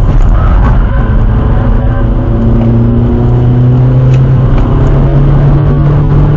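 Skoda Fabia vRS's 1.9 TDI diesel engine heard from inside the cabin, accelerating in one gear with its pitch climbing steadily.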